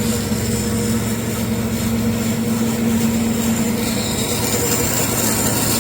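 Large Jaespa ASH9 three-phase bandsaw running with its blade turning, a steady mechanical hum. About two seconds in its droning note drops away and the sound shifts, and a higher whine comes in near the end.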